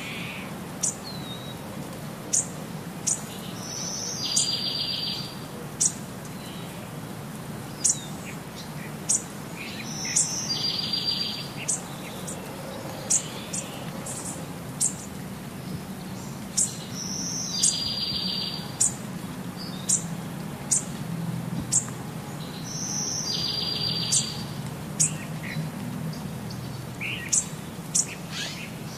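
Birds chirping: short, sharp, high chirps about once a second, with a buzzy trill repeating every six or seven seconds.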